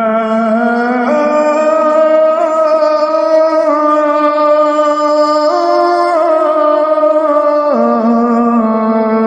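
Muezzin chanting the adhan in the old Javanese langgam style, drawing out one long melismatic vowel on a single breath. The held note steps up in pitch several times, wavering slightly, then drops back down near the end.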